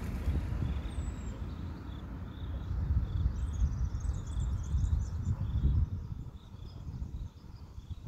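Outdoor ambience: a low, steady rumble with a faint high chirp repeating about twice a second, and a brief cluster of higher twitters near the middle.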